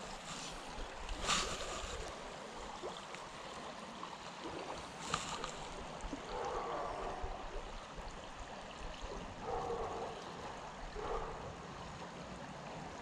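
Shallow creek water running steadily over rocks, with a sharp click about a second in and another about five seconds in.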